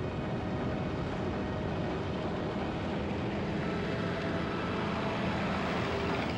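Steady rumble of a military truck driving, with no marked rise or fall.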